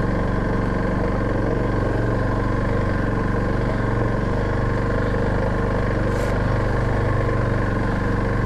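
Suzuki DR650's single-cylinder engine running at a steady, unchanging speed.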